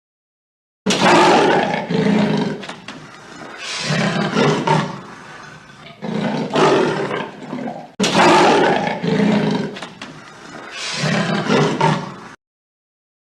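A big cat roaring: a series of deep roars that starts suddenly about a second in, starts over abruptly about eight seconds in, and cuts off about a second before the end.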